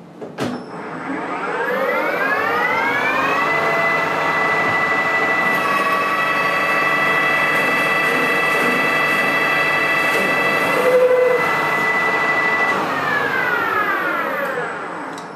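Precision Matthews PM 1440TL lathe switched on with a click, its geared headstock whine rising to speed over about three seconds, then running steady while a homemade boring bar takes a 100 thou turning cut that throws long stringy chips. Near the end the whine falls away as the spindle slows to a stop.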